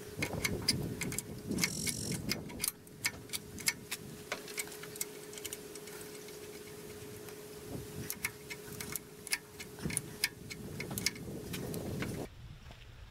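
Light, irregular metal clicks and taps as hydraulic hose fittings are threaded onto the log turner's hydraulic motor by hand and with a wrench. A faint steady hum lies underneath and cuts off near the end.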